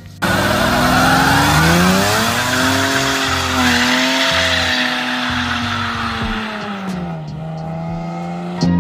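2JZ straight-six engine held at high revs in a burnout, rear tires squealing and spinning on the asphalt. The revs climb about a second and a half in, hold, then drop about seven seconds in as the squeal fades.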